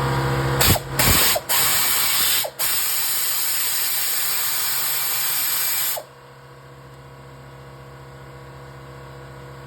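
Pneumatic air ratchet backing out bolts: a loud hiss of air with three short breaks, cutting off about six seconds in. An air compressor's steady hum runs underneath and is heard alone before and after.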